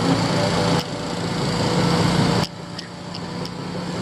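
Diesel engines of heavy construction machinery (excavators) running. The engine noise builds up and drops off abruptly twice, about a second in and again past the halfway point, over a steady low hum, with a few faint ticks.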